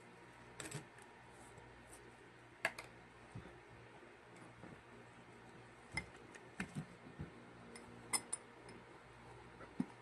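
Scattered light clicks and taps of a plastic spatula, a plastic clay tub and a small glass cup knocking together as kinetic sand clay is handled and scraped into the glass. There are about half a dozen separate taps, with a small cluster between about six and eight and a half seconds in.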